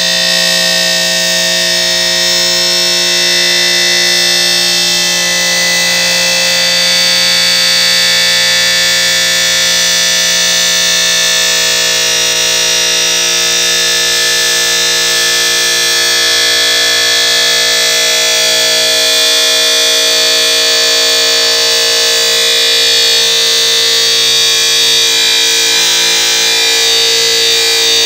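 Abrasive cut-off disc in a robotic fettling machine, running and cutting femoral castings from their casting tree: a loud, steady whine made of several held tones.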